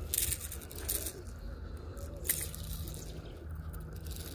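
Water splashing and dripping in a few short bursts as a small largemouth bass is landed on hook and line.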